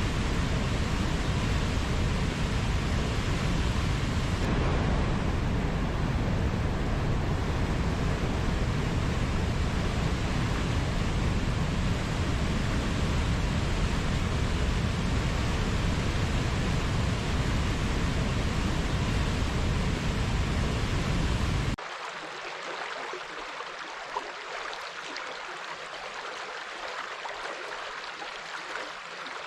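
Steady rush of flowing water, heavy in the low end; about three-quarters of the way through it cuts abruptly to a quieter, thinner flow of water with small crackles.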